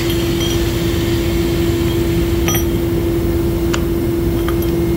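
Steady machinery hum with one strong constant tone and a low rumble, from equipment that could not be shut down. A few light metal clicks and clinks sound over it as the pipe threader's die head is handled.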